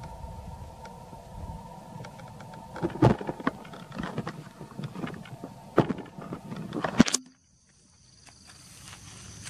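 Irregular sharp clicks and knocks over a low rumble. About seven seconds in the sound cuts out abruptly, and insects start a steady high-pitched buzzing.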